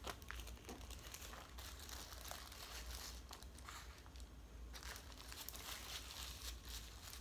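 Faint, intermittent crinkling and rustling of wax-paper food wrapping being handled and unwrapped from takeout fried chicken.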